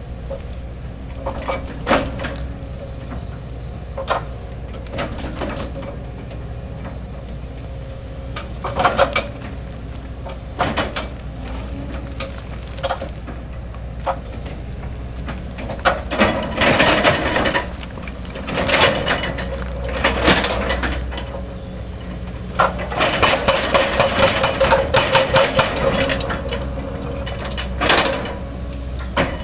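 Hydraulic excavator's diesel engine running steadily while its bucket scrapes and knocks against rock and soil on a cut slope, with stones clattering. Scattered single knocks, with longer stretches of heavy scraping and clatter in the middle and again near the end.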